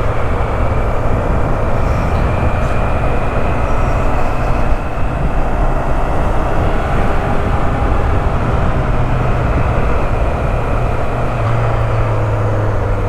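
Riding a motorcycle: the engine runs steadily under a loud, even rush of wind and road noise on the camera's microphone.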